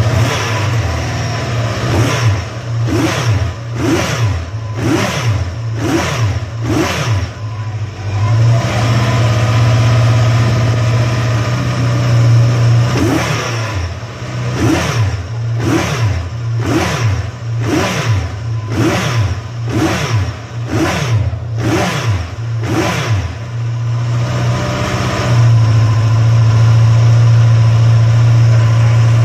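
Münch Mammut motorcycle's air-cooled NSU four-cylinder car engine idling and being revved on the throttle in quick blips, about one a second, each rising and falling in pitch. There are two runs of blips with steady idling between, and it settles back to a steady idle for the last few seconds.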